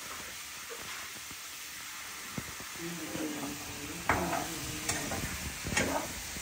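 Food sizzling in hot oil in a pan while it is stirred, with a few louder scrapes of the stirring utensil against the pan in the second half.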